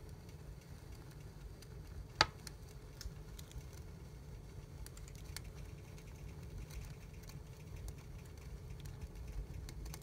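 Fireplace fireworks burning in the fire: spark fountains and flames crackling with many small clicks over a low steady rumble, and one sharp pop about two seconds in.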